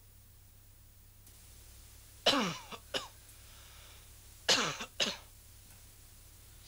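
A man with a cold coughing in two fits about two seconds apart, each a strong cough followed by one or two shorter ones.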